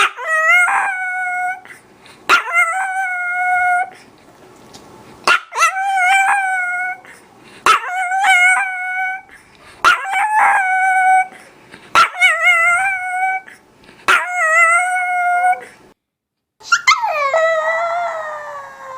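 Chihuahua howling: a run of about seven high-pitched howls, each about a second and a half long and rising sharply at its start, one every two seconds or so. After a brief silence near the end comes a longer howl that slides down in pitch.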